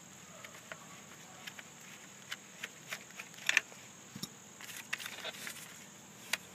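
Steel screwdriver prying and scraping at the steel frame of a small vacuum motor: irregular sharp metallic clicks and scrapes, the loudest about three and a half seconds in, with a run of scratchy scraping around five seconds.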